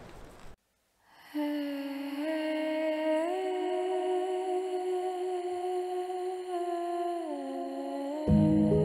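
Soft, sustained music: one held note that steps slowly up and down in pitch a few times. A fuller, louder part with lower notes comes in near the end.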